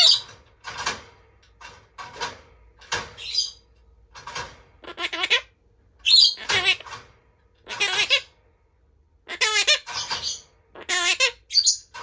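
Monk parakeet (Quaker parrot) giving a string of short, loud squawking calls, about one or two a second, some with a wavering pitch.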